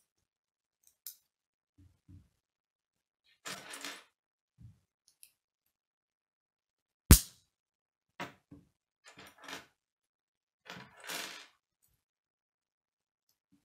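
K'nex plastic pieces being handled and snapped together: scattered small clicks and rustles, with one sharp, loud snap about seven seconds in.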